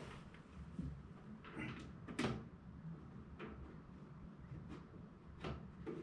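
About half a dozen scattered knocks and clunks, the loudest about two seconds in, as a person shifts about and handles the frame in the seat of a small skid steer.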